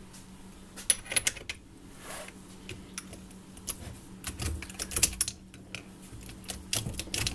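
Irregular sharp metallic clicks and clacks from a Simson moped engine's gearbox being shifted through by hand. The shaft is worked with locking pliers clamped onto it. A faint steady hum runs underneath.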